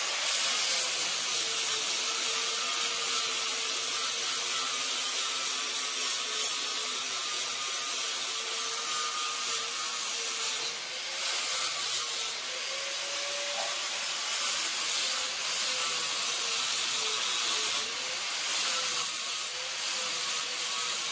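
Angle grinder grinding steel on a go-kart frame: a steady motor whine with a harsh grinding hiss, the pitch dipping slightly as the disc bites, with a few louder surges near the middle and near the end.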